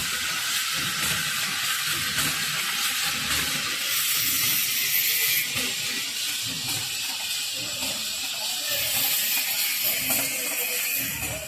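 Filling and packing machine for small 10–50 gram packs running steadily, a continuous mechanical clatter and hiss.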